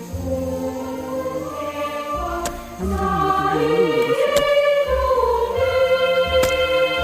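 Background music: a slow melody in long held notes, sung in a choir-like voice over a pulsing bass, getting louder about three seconds in.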